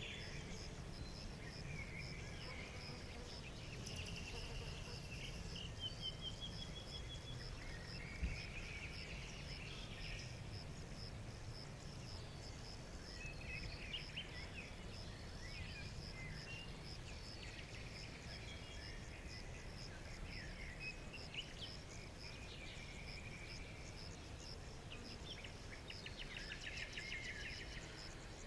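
Forest birds chirping and trilling at intervals over a steady, evenly pulsing insect trill, with a low background rumble.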